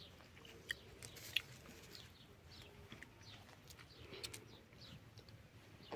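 Faint, repeated small-bird chirps, short falling notes several times a second, with a few sharp clicks, the loudest about a second and a half in.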